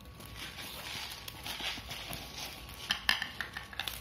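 Packing tape and plastic parcel wrapping being peeled and torn off a cardboard box by hand, an uneven rustling and scraping, with a few sharp clicks and taps about three seconds in.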